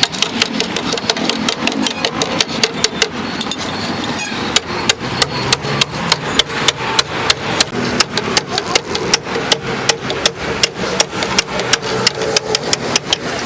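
Rapid hammer strikes on car body sheet metal, about four sharp blows a second, over a steady machine hum.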